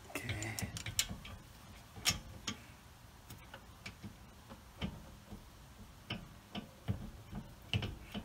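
Irregular light metallic clicks and taps as a rear brake caliper is worked into place by hand over the pads and rotor.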